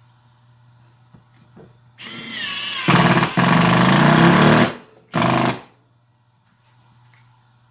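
Makita LXT brushless subcompact impact driver spinning up briefly, then hammering as its impact mechanism drives a small screw into a block of wood, followed by a short second burst. It is set to its self-tapping-screw mode, which slows the screw so it does not strip out.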